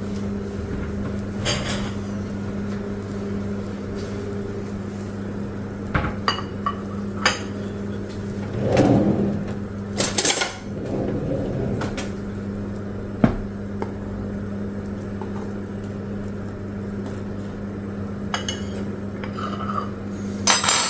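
Kitchenware being handled: scattered clicks, knocks and clatters of a plastic microwave toastie cooker and dishes, with a couple of rougher scraping handling noises in the middle. A steady low hum runs underneath.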